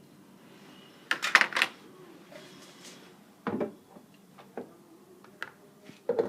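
A few short knocks and clatters of kitchen utensils being handled: a quick cluster about a second in, a single knock about halfway and a few light ticks near the end, with no mixer running.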